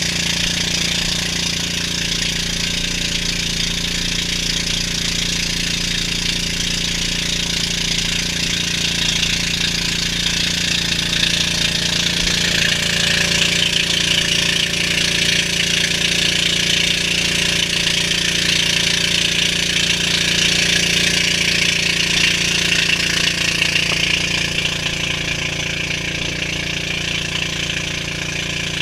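Engine of a motorised outrigger boat (bangka) running steadily under way, with the steady hiss of the wake and spray over the hull.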